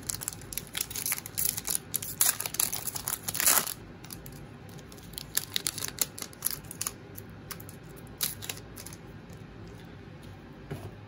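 Plastic wrapper of a baseball card pack being torn open and crinkled: a dense run of sharp crackling over the first four seconds, then scattered lighter crinkles and taps as the cards come out and are handled.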